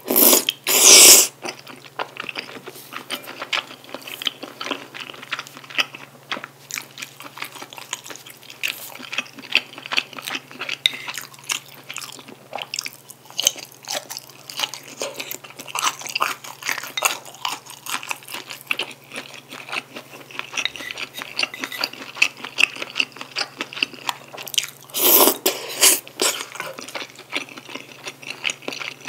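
Close-miked chewing of sticky rice cakes, wide glass noodles and bacon in black bean sauce: a steady run of wet smacking and squishing mouth sounds. Two louder slurps stand out, one right at the start and one near the end.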